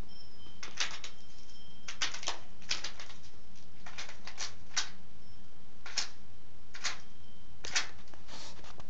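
A hen pecking at the ground in wood shavings: irregular sharp taps and rustles, about ten in all, some coming in quick runs of two or three.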